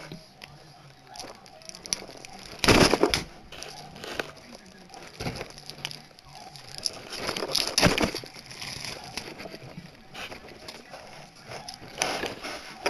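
Rustling handling noise from glossy character cards being picked up and shuffled close to the microphone, with three louder brushing bursts about three, eight and twelve seconds in.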